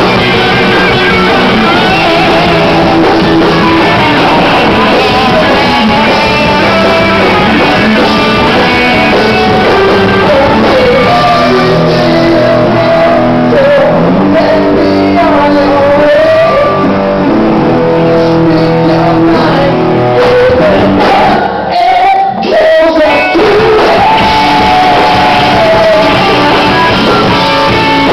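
Live rock band playing loud, with electric guitars, bass and drums and a man singing into the microphone. About two-thirds of the way through, the band stops short twice, very briefly.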